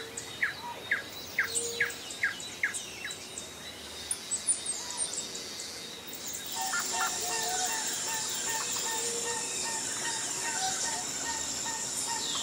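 Wild birds singing in forest. A quick run of short, falling chirps fills the first few seconds. About six and a half seconds in, the sound changes to repeated short calls over a steady high-pitched hiss.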